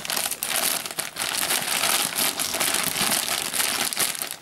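Bubble wrap and plastic packaging crinkling and rustling as it is pulled away from a figure piece, with many small crackles.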